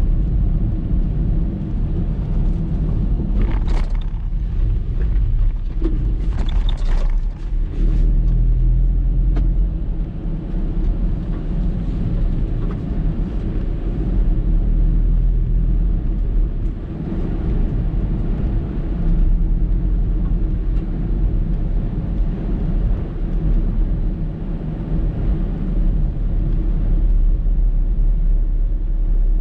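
Typhoon wind buffeting the microphone in a heavy low rumble, over the noise of rough surf, with a few short hissing bursts a few seconds in.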